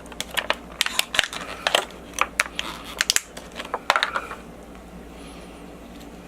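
Small parts of a banana plug clicking and rattling as they are handled and taken apart, a quick run of sharp clicks that stops a little after four seconds in.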